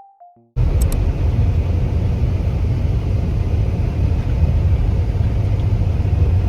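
A steady, loud low rumble cuts in about half a second in, just after a faint last piano note, and holds without a break.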